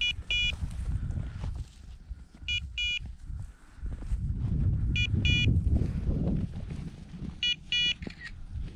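Electronic beeper sounding a high double beep about every two and a half seconds, four times, typical of a bird dog's beeper collar in point mode, signalling that the dog is standing on point. Wind and footsteps rumble underneath.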